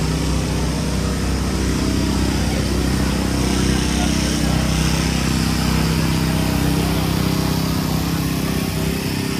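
An engine running steadily at an unchanging pitch, under a general outdoor hubbub.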